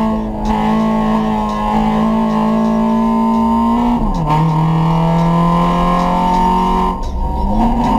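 Straight-piped VW Gol 1.0 four-cylinder engine with a sport air filter, heard from inside the cabin, running hard at high revs under load on track. About four seconds in the revs fall sharply with an upshift and then hold steady; near the end the note drops off briefly and then climbs again.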